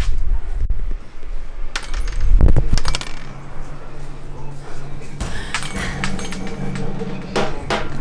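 Wind noise on the microphone for about the first second, then scattered light metallic clinks and jingles over a steady low hum.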